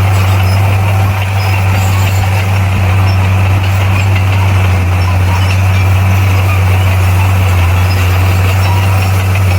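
Bulldozer's diesel engine running steadily with a low, even hum.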